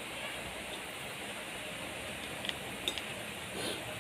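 Steady background hiss, with two light clicks of a metal spoon against a ceramic soup bowl about half a second apart near the end.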